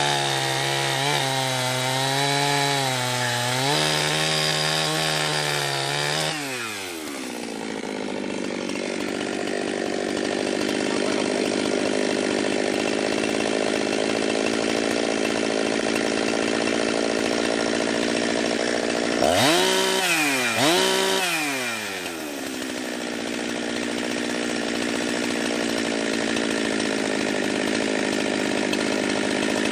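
Jonsered 2071 two-stroke chainsaw running under load while cutting a large chunk of wood. The engine note wavers for the first several seconds, then settles to a steadier pitch, with two quick dips and recoveries about two-thirds of the way through.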